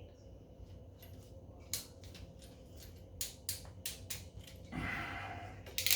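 Hand crimping tool squeezed closed on an N-type connector's metal ferrule to make a hex crimp on coax cable: a series of separate clicks, a second of rasping, then a sharp snap near the end.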